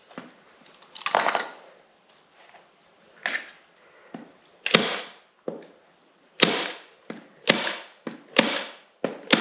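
A series of sharp snapping clacks from a hand tool at work, about eight to ten of them at irregular intervals and coming faster in the second half, each with a short tail.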